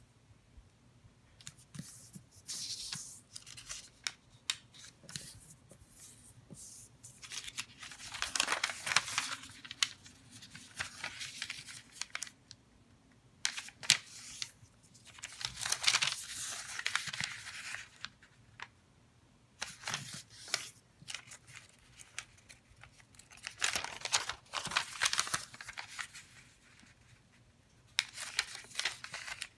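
A sheet of origami paper being folded and creased by hand: bursts of crisp rustling and scraping as fingers press and run along the folds, with short quiet pauses between them.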